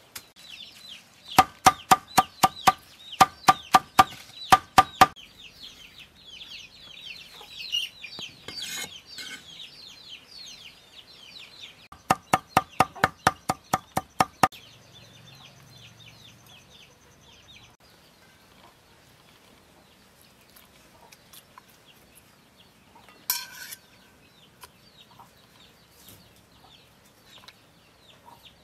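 Cleaver chopping on a wooden cutting board: two runs of quick, even chops, about four a second, first through green onions, then through chilies and garlic. Chickens cluck and chirp in the background, and there is one louder knock in the later part.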